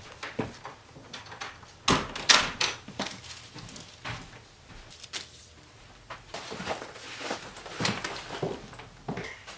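Wooden front door of a house shutting, with two sharp knocks about two seconds in as it closes and latches, followed by scattered soft knocks and footsteps across the room.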